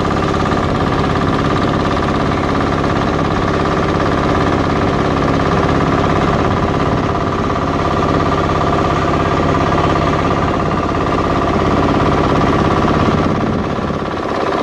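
Engine of a small wooden tourist boat running steadily at an even speed, heard from on board.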